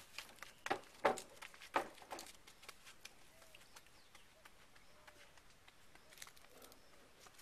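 A few footsteps and knocks on wooden boards in the first two seconds or so, then quiet outdoor background with a few faint chirps.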